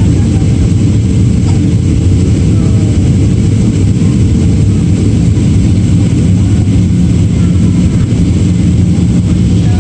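Steady low-pitched roar of an airliner in flight, heard from inside the passenger cabin: engine and airflow noise.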